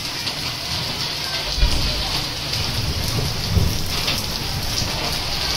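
Steady rain falling, an even hiss, with a low rumble joining in about a second and a half in.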